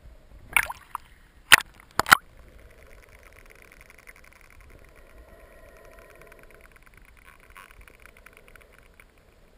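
Melon-headed whales heard underwater: after a few loud sharp knocks in the first two seconds, a long run of rapid click trains with a buzzing, pitched quality, fading out near the end.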